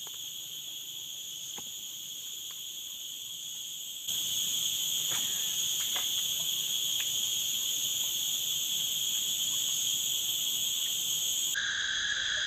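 Steady, shrill chorus of forest insects singing in several high pitches at once. It gets louder about four seconds in, and a lower-pitched insect joins near the end. A few faint ticks sound over it.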